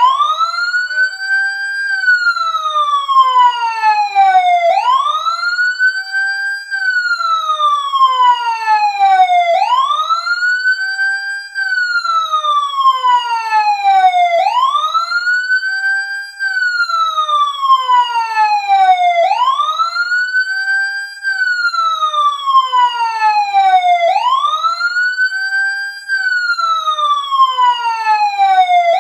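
Emergency siren sounding a wail: the pitch rises quickly, holds briefly at the top, then slides slowly down, repeating about every five seconds.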